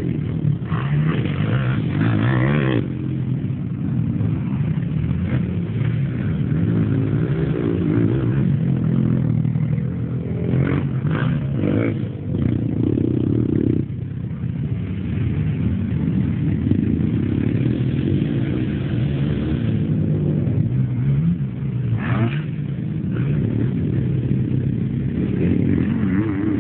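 Sport quad (ATV) engines revving and easing off, the pitch rising and falling as they accelerate around a dirt track.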